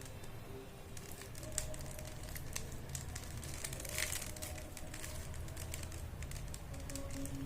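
Plastic Rubik's cube being turned by hand: irregular light clicks and clacks of its layers rotating, with a busier bit of clatter about four seconds in.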